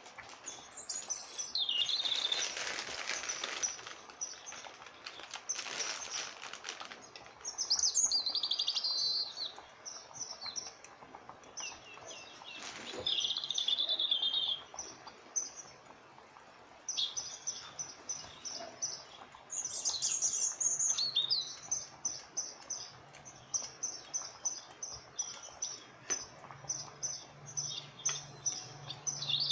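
Small songbirds chirping and trilling in quick high-pitched runs, over and over, with two bursts of rushing hiss in the first few seconds.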